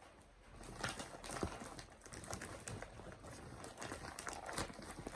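Gift packaging being handled and opened: irregular rustling and crinkling with scattered small clicks and taps.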